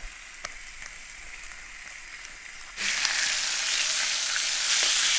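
A few faint clicks of a fork against a pan, then, about three seconds in, a sudden loud, steady sizzle of veal belly chops frying in a hot pan.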